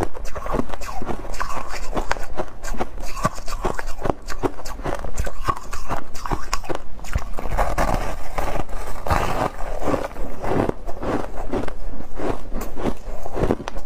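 Crunching and chewing of a block of refrozen shaved ice, bitten off and ground between the teeth in a dense, continuous run of crisp crunches.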